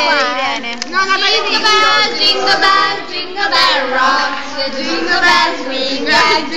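A group of teenage girls singing together.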